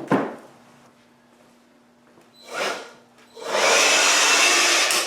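DeWALT 20V MAX compact cordless blower (DCE100) triggered in two brief bursts, then run for about a second and a half as a loud steady rush of air with a faint motor whine, cut off near the end.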